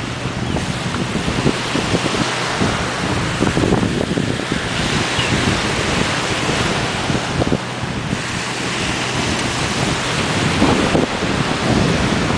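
Steady wash of ocean surf with gusty wind rumbling on the microphone.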